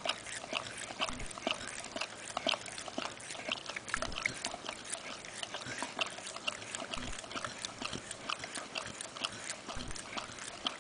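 Bernese mountain dog licking frozen yogurt from a cup held to his mouth: quick, irregular wet lapping and smacking sounds, several a second.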